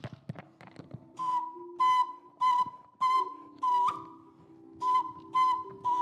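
A whistle blown in short rhythmic blasts, about two a second, with a pause of about a second in the middle; a few blasts end with a quick upward flick in pitch. A low held tone sounds underneath.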